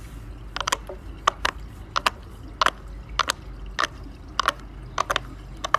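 Round silicone pop-it fidget toys being pressed bubble by bubble: a run of sharp little pops, about two a second and often in quick pairs, over faint background noise.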